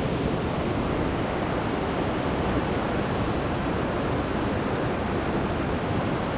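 Steady, unbroken rush of falling water from Hurricane Falls and the river in the gorge.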